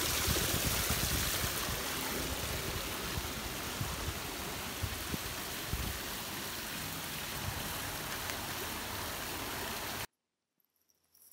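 Steady hiss and patter of rain falling on a swimming pool and wet stone paving, with scattered low knocks. The sound cuts off suddenly about ten seconds in.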